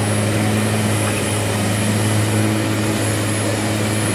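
Turbocharged diesel pickup truck engine running steadily at full load while pulling a weight-transfer sled, a steady low drone with a thin high whistle above it.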